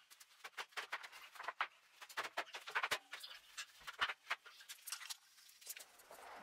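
Footsteps on a concrete floor and light knocks of timber being handled: a quiet run of short, irregular taps and clicks.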